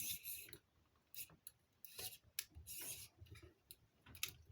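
A hand tool scraping and clicking against a tight fastener on the radio's housing in a string of short scratchy bursts, as it is worked to open the case.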